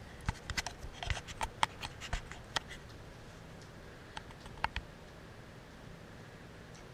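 Kittens' claws scratching and catching on a blanket and a plush toy as they play: a quick run of light clicks and scratches over the first couple of seconds, then a few more about four seconds in.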